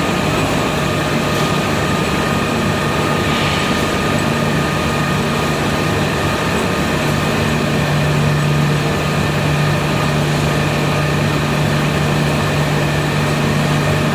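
An industrial furnace's machinery running steadily: a constant low hum over an even rushing noise, with no change in pace.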